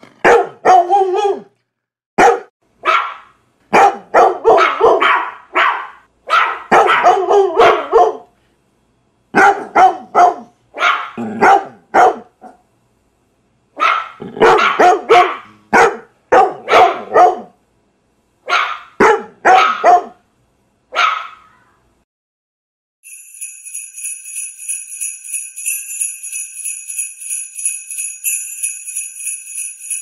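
A dog barking in a long string of short bouts, several barks each. After a short pause, sleigh bells start jingling steadily in a quick shaking rhythm about 23 seconds in.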